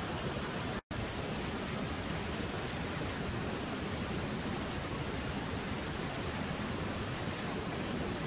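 Lit gas canister camp stove burner heating a pot of water, giving a steady, even rushing hiss with a brief break in the sound about a second in.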